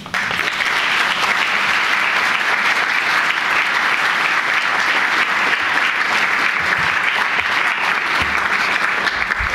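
Conference audience applauding: dense, even clapping that starts all at once and holds steady, easing off just before the end.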